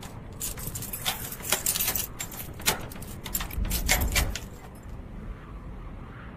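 A bunch of keys jangling and clicking in a door lock, a rapid run of sharp metallic jingles for about four seconds. There is a low thump about four seconds in, and then it settles.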